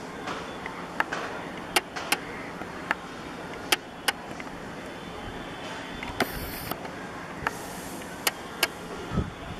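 Steady outdoor background noise with several sharp clicks scattered through it and a short hiss about six seconds in.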